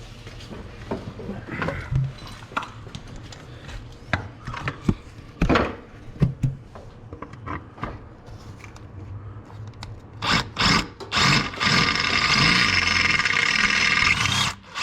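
Scattered knocks and clicks of tools being handled against metal. About ten seconds in, a power drill starts with a couple of short bursts, then runs steadily with a whine for about three seconds, drilling out a rivet that holds a stock brake line to the trailing arm.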